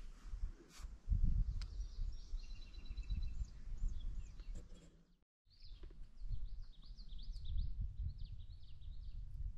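Songbirds singing: a short trilled phrase in the first few seconds, then a long run of quick up-and-down warbled phrases in the second half. A low rumble runs underneath, and the sound drops out briefly about five seconds in.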